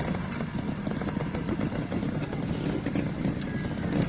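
Trials motorcycle engine running at low revs with an uneven pulse as the bike climbs a rocky step.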